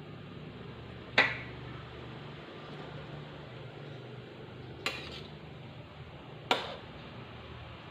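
A stirring spoon or ladle clanking against a big cooking pot of opor ayam three times, the first knock the loudest, each with a short ring, over a steady low hum.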